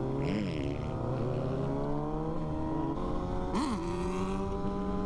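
Kawasaki ZX6R's inline-four engine pulling under throttle, its pitch climbing steadily. About three seconds in there is an upshift: the pitch drops and starts rising again.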